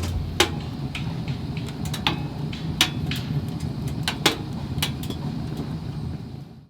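A series of irregular sharp clicks and knocks over a steady low hum, fading out near the end.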